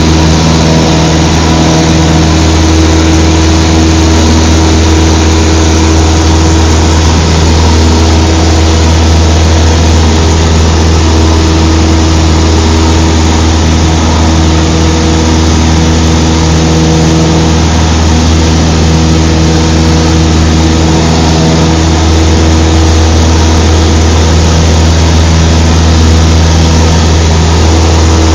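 Cessna 152's four-cylinder Lycoming engine and propeller running at steady power, a loud unbroken drone with a deep hum and several steady tones above it.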